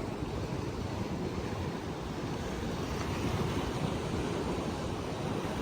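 Sea waves washing onto a beach, a steady rushing noise, with wind rumbling on the microphone.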